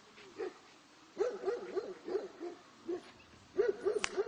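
A dog barking in quick runs of short barks, with a single sharp click near the end.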